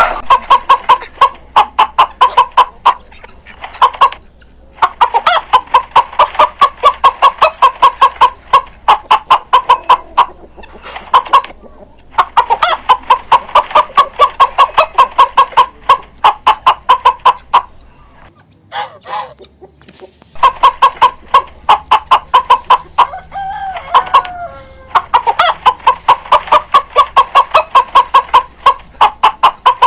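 Chickens clucking: quick runs of short, repeated clucks, several a second, broken by brief pauses and one longer break about two-thirds of the way through.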